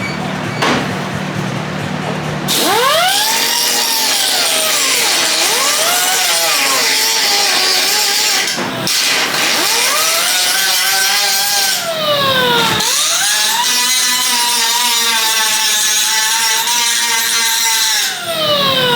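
Handheld power grinder running on metal. Its pitch sags each time it is pressed into the work and climbs again as it is eased off, several times over. The first couple of seconds hold only a steady low hum.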